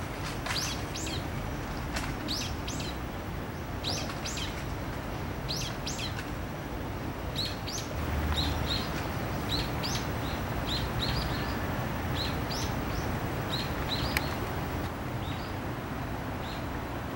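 A small songbird chirping: short, high chirps repeated in little runs of two or three throughout, coming quicker and shorter in the second half, over a steady low background noise.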